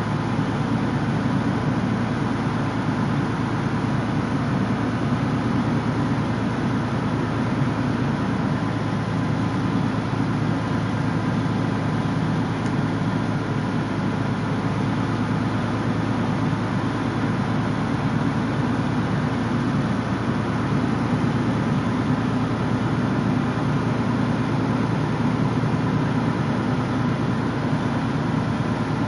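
Heavy-haul truck and trailer rolling slowly with a steady, even low engine noise and road rumble, unchanging throughout.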